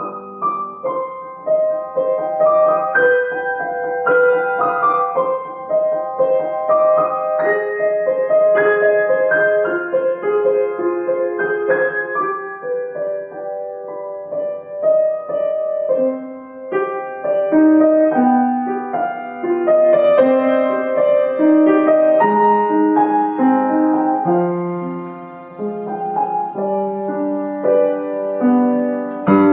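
Background music: a gentle solo piano piece playing a flowing melody over held chords.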